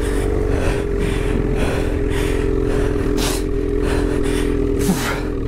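Ski-Doo snowmobile's 850 two-stroke engine running at a steady pitch under throttle, with rushes of hiss coming about every half second.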